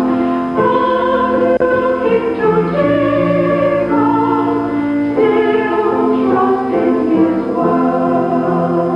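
Mixed church choir singing a hymn in held chords, with piano accompaniment.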